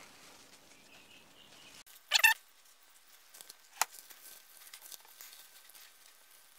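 Plastic cling wrap being peeled off a loaf pan of risen dough: faint crinkling, with a short squeak about two seconds in and a sharp click a second and a half later.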